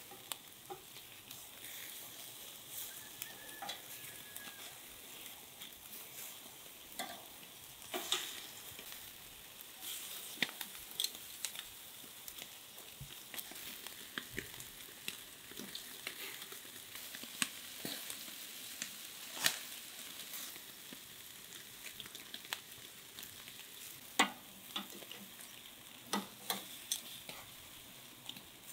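Chicken thighs sizzling on the grate of a charcoal grill: a steady hiss broken by sharp pops and crackles every second or so.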